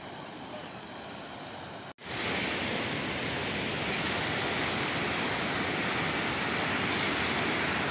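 Muddy floodwater rushing in a steady, even roar. About two seconds in the sound cuts off for an instant and comes back louder, as close churning rapids.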